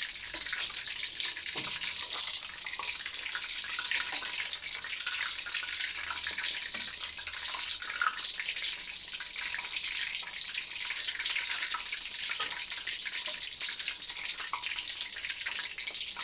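Batter-coated rambutan fritters deep-frying in hot oil in a wok: a steady sizzling crackle of bubbling oil.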